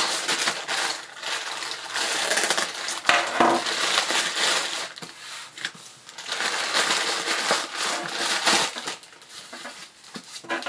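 Plastic packaging crinkling and rustling in irregular bursts as a plastic mailer bag is handled and a foam-wrapped item is taken out of it, dying down near the end.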